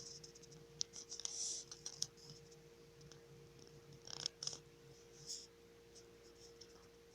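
Soft snoring of someone asleep, heard as scattered clicks and short hissy rattles with a faint low rumble, the strongest rattles about four seconds in, over a steady faint hum.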